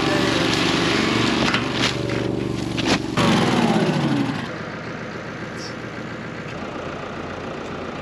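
Tractor engine running, its revs falling away over about a second and a half from about three seconds in, then settling to a lower, steady idle.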